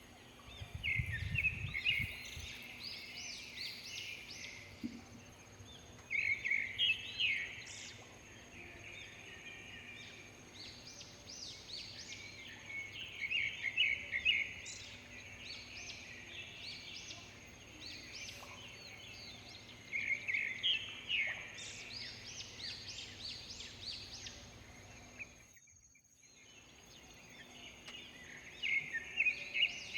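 A bird repeats a short, busy chirping song phrase about every six to seven seconds, five times in all, over a thin, steady high tone of rural morning background. The sound drops out for about a second near the end.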